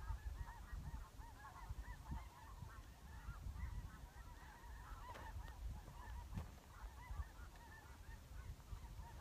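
A flock of geese honking faintly, many short calls overlapping throughout, over a low wind rumble, with a few light clicks.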